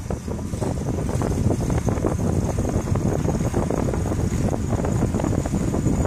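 Steady low rumble of wind rushing over the microphone and tyre noise from a bicycle rolling along a paved tunnel path.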